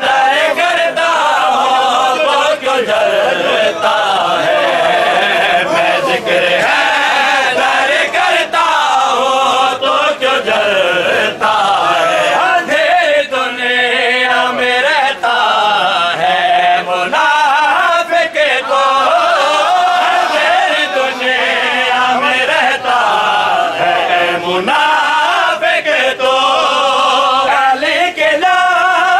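A crowd of men chanting a noha lament together in unison, with sharp slaps of hands beating on chests (matam) cutting through the singing.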